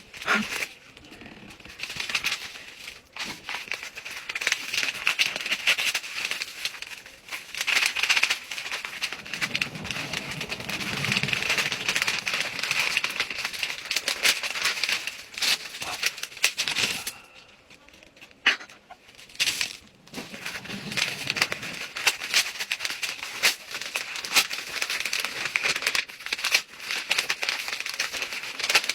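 Packing material crinkling and rustling as mailed plants are unwrapped and handled, in long irregular stretches with a couple of short lulls about two thirds of the way through.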